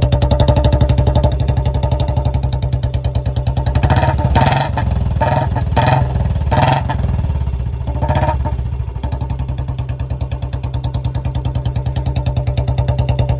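Royal Enfield BS6 Bullet's single-cylinder engine idling with a steady, even thump through a long C-bend aftermarket exhaust, with about five quick throttle blips in the middle before it settles back to idle.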